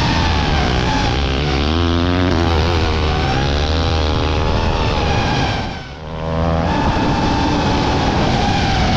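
Motocross bike engine revving hard through a corner and accelerating, its pitch rising and falling with the throttle, over the steady high whine of an FPV drone's propellers. The sound dips briefly about six seconds in, then another bike's engine carries on.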